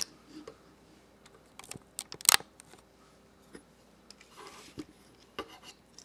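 Small metal clicks and rubbing from a Leatherman Surge multi-tool being handled, its fold-out tools moving and clicking against the frame; the loudest, sharpest click comes a little past two seconds in.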